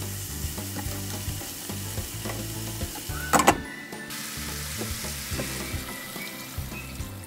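Fish pieces, onion and ginger sizzling in oil in a nonstick frying pan while being stirred with a spatula. About three and a half seconds in there is a short sharp clatter as a glass lid goes onto the pan, and near the end water is poured in.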